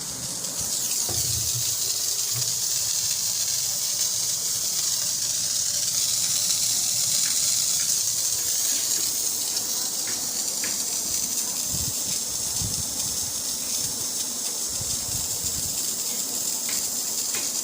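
Steady high-pitched hiss of pressurised gas, coming in about half a second in and holding steady, with a few faint low knocks of handling underneath.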